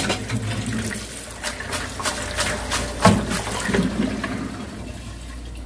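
Water running and splashing into a stainless steel sink as blanched fish cake strips are drained in a metal mesh strainer, with a string of clattering knocks from the strainer against the sink and bowl, the loudest about three seconds in.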